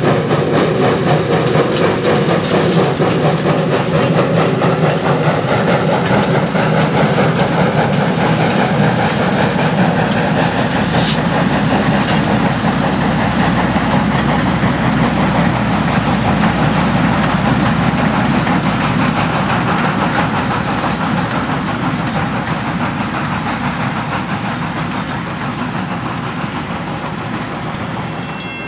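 Steam locomotive No. 40 and its train of passenger coaches running past on the rails, a steady loud clatter and rumble of the train. The sound fades over the last several seconds as the train moves away.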